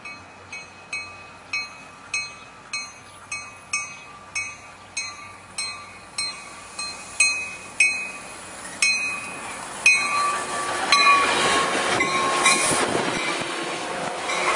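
Coaster commuter train approaching with a bell ringing in a steady rhythm of about two strikes a second, the strikes growing louder as it nears. About ten seconds in, the rushing wheel and rail noise of the bi-level cars passing at speed takes over.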